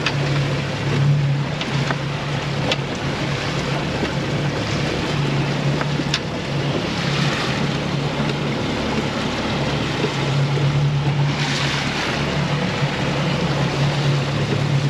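Boat motor running with a steady low hum that swells and fades, under wind on the microphone and the wash of the sea. Two faint clicks come about three and six seconds in.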